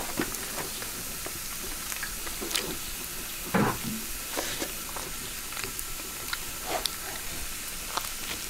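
Steady hiss from a wok of liquid heating over a charcoal stove, with scattered small crackles and clicks. One louder thump comes about three and a half seconds in.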